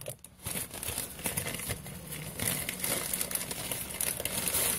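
Crinkly packaging being handled: an irregular run of small crackles and rustles as the new camcorder is unwrapped.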